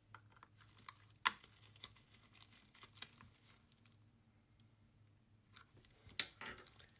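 Scattered light clicks and taps of gloved fingers handling a small screw against the plastic back case of a Casio FX-7000GA calculator, with a sharper click about a second in and another near the end. A faint steady low hum runs underneath.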